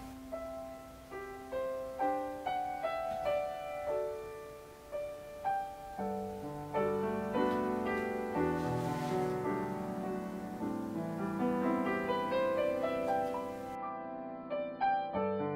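Solo piano background music: single notes at first, becoming fuller with lower notes from about six seconds in.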